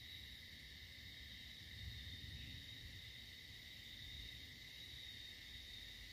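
Faint outdoor ambience: a steady, unbroken high-pitched drone over a low rumble.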